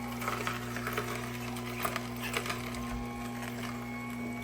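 Electric juicer motor running with a steady hum, with scattered light clicks and rattles over it.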